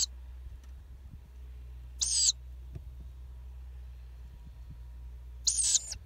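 Ural owl chicks peeping: three short high-pitched calls, one at the start, one about two seconds in and one near the end.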